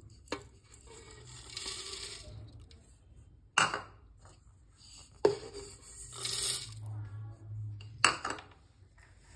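Sujata mixer-grinder jar being handled and filled with dry ingredients: four sharp knocks, and two longer stretches of pattering as small pieces are tipped in.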